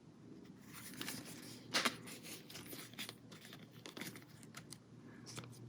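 Faint rustling and crinkling of paper packaging being handled, with a sharper crinkle about two seconds in.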